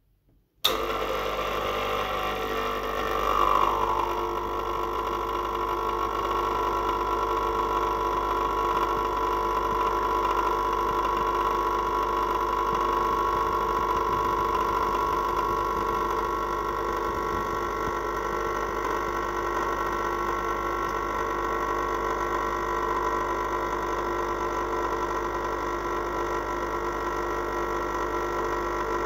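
Rancilio Nancy espresso machine's pump buzzing steadily while it pulls an espresso shot, switching on suddenly about half a second in.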